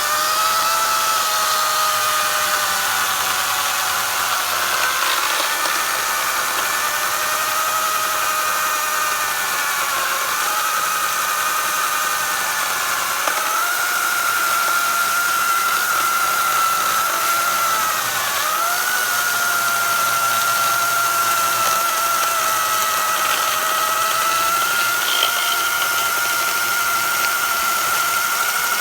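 Oregon 40-volt battery chainsaw's electric motor and chain running with a steady high whine while cutting through a knotty, hard log. The pitch sags briefly and recovers a few times as the chain bogs under load.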